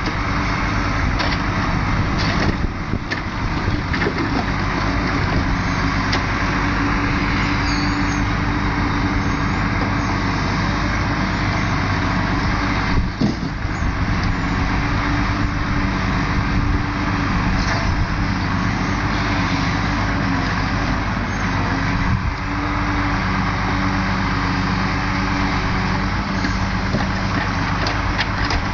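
Volvo timber lorry's diesel engine running steadily to drive its Loglift crane's hydraulics while the crane loads pulpwood logs, its note shifting a little as the crane works, with a few faint knocks from the logs and grapple.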